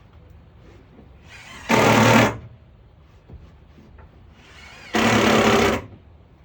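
Power driver driving screws into plywood subfloor in two short runs, the first about two seconds in and the second about five seconds in. Each run starts with a brief spin-up.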